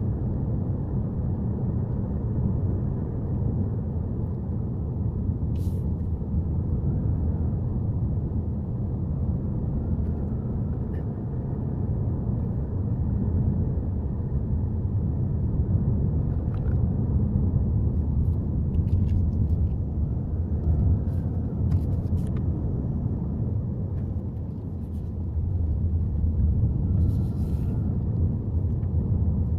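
A Subaru Forester driving on a mountain road: steady low road and engine rumble, with a few faint clicks.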